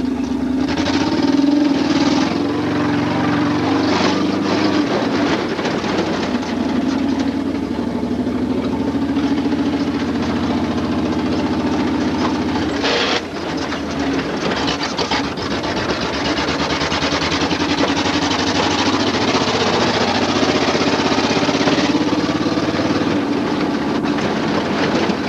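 Dodge Ramcharger's 360 V8 running hard on the move, a loud, steady exhaust drone whose pitch wavers a little and dips briefly about thirteen seconds in, with rushing noise from the open-top ride.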